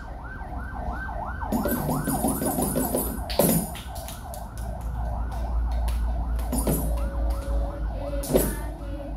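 Emergency vehicle siren on a yelp cycle, its pitch rising and falling about three times a second. Three sharp hits fall in the middle, near the end and just before the end.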